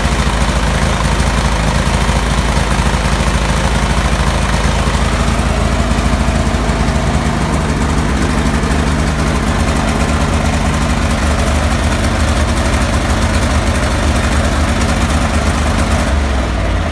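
Kohler CH18 18-horsepower engine on a Cub Cadet 3184 lawn tractor idling roughly and unevenly, its note changing about seven seconds in: the weird idling issue the owner is demonstrating.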